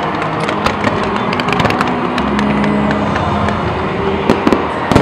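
Aerial fireworks going off: a rapid, irregular run of sharp cracks and pops over a continuous rumble, with a louder bang near the end.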